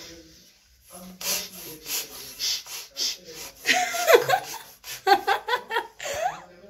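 Quick breathy puffs of air for a couple of seconds, then a woman laughing out loud in short bursts from about four seconds in.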